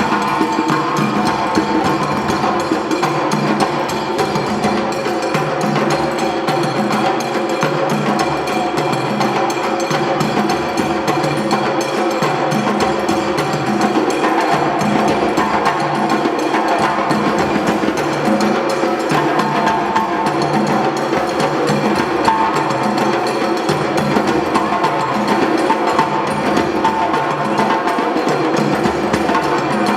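A drum ensemble playing a steady, fast percussion rhythm without a break, with a bright, clicking, woodblock-like pattern repeating over the drums.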